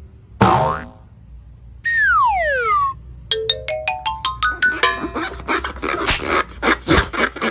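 Comic sound effects laid over the video: a sharp hit, then a whistle-like tone gliding down over about a second, then a quick run of rising notes like a climbing scale, then busy music with rapid clicks.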